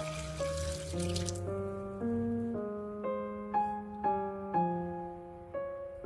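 Water pouring in a stream into a pan of peeled hard-boiled eggs, which stops about a second and a half in, over background piano music that then plays on alone.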